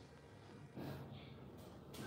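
A man breathing hard through nose and mouth from the strain of holding a forearm plank, with a louder, noisy exhale starting about three-quarters of a second in.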